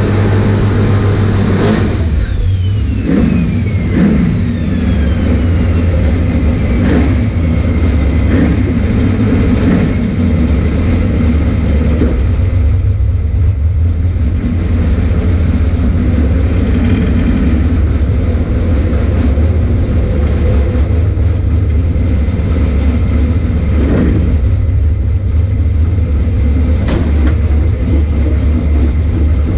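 Boosted LS V8 drag-car engine heard from inside the cabin, settling to a steady, loud idle after a rev. A high whine falls in pitch over the first several seconds, and a few short sharp sounds stand out over the rumble.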